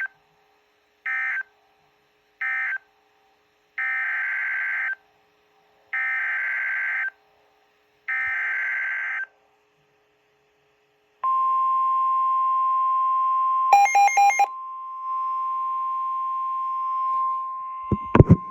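Emergency Alert System signalling on NOAA Weather Radio: three short buzzy SAME data bursts (the end-of-message code closing the watch statement), then three longer one-second SAME header bursts announcing the new severe thunderstorm warning. After a pause of about two seconds, the steady 1050 Hz weather radio warning alarm tone sounds, broken by a quick flurry of beeps partway through and a sharp click near the end.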